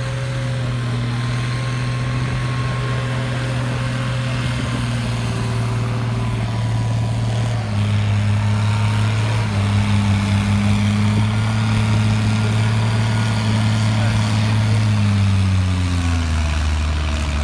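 Pulling tractor's engine running steadily, then revving higher in two steps about 8 and 9.5 seconds in, and dropping back near the end.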